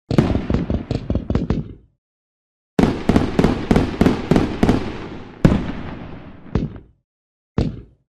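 Fireworks going off in quick volleys of sharp bangs. A two-second run of cracks, a short gap, then a longer run of bangs with the loudest one about halfway through, tailing off into crackle, and a single bang near the end.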